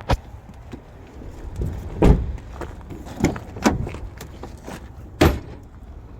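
Doors and fittings of a 2017 GMC Yukon being handled: a series of sharp clunks, the heaviest a deep thump about two seconds in, with others just after three and near four seconds and one just after five.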